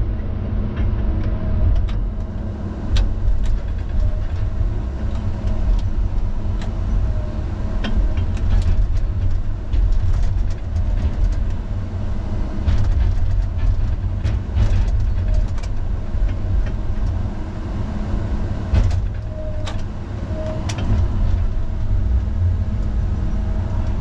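Diesel engine of a knuckleboom log loader running steadily under working load, heard from inside the operator's cab. Scattered sharp clicks and knocks come through over the engine's low rumble as the boom and grapple work.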